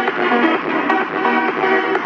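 Music played loud through a custom car sound system with speakers built into a Toyota Avanza's boot, with a steady beat.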